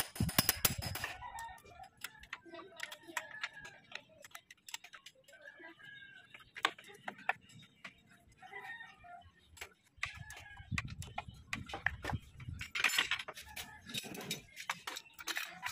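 Hand wrenches clinking and clicking on metal bolts in a van's engine bay: scattered sharp clicks, heaviest near the start and again near the end, with faint animal calls in the background.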